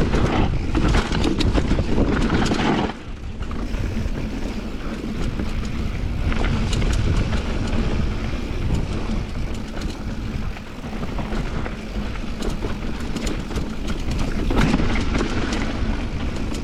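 Mountain bike rolling fast down a rough trail: wind buffeting the microphone over the rumble of the tyres, with the bike rattling and knocking over bumps throughout. It is loudest for the first three seconds, then drops a little.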